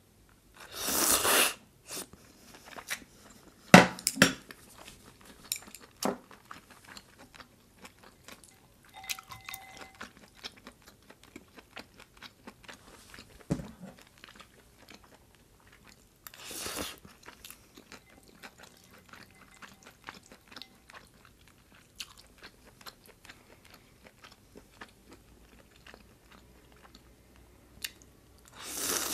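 Close-miked eating of cold chewy noodles: loud slurps of noodles three times (about a second in, around the middle and at the end), with wet chewing, smacking and small clicks of chopsticks between.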